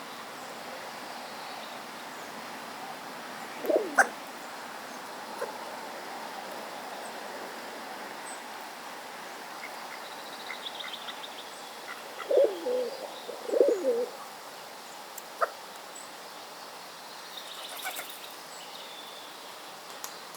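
Hooded crow fledgling hiccuping: a few short, sharp hics spread several seconds apart. Two soft, low wavering calls come a little after the middle.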